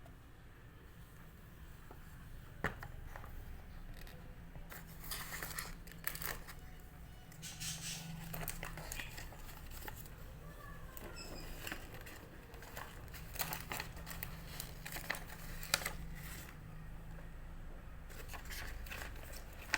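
Packaging being opened and handled by hand: irregular crinkling and tearing of wrapping, with scattered sharp clicks and knocks.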